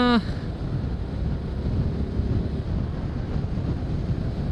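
Wind rushing steadily over the microphone of a moving motorcycle, with the Suzuki Gixxer's engine running underneath.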